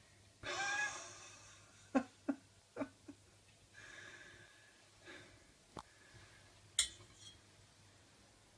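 A man's wordless vocal sound and breathing about half a second in, followed by a scatter of light, sharp clicks and taps.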